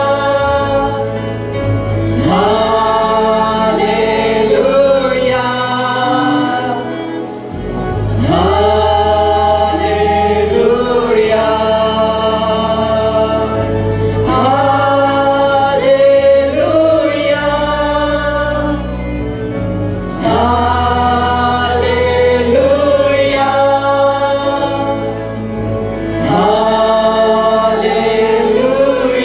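Mixed choir of men and women singing a Sinhala Christmas song over an accompaniment of sustained bass notes that change in steps.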